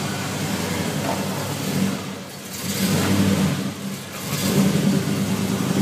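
Chevy muscle car engine running at low speed as the car rolls slowly. It has a steady low rumble that drops away briefly twice and comes back up.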